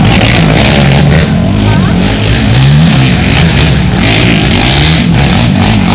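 Several racing ATV engines revving hard, their pitch repeatedly rising and falling as they accelerate and shift.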